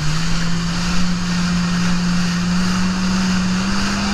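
Jet ski engine running at speed, one steady note slowly climbing in pitch, over a loud rush of water spray and wind.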